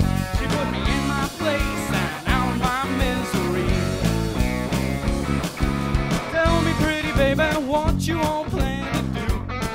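Rock band playing: electric guitar lines that waver in pitch over bass guitar and a drum kit.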